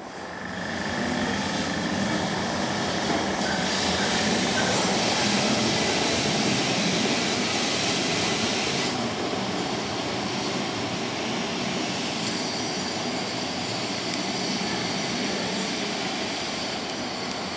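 Historic electric street tram running on its rails: a steady rumble of wheels and motor that swells over the first couple of seconds and eases a little about halfway through, with a thin high squeal for the first few seconds.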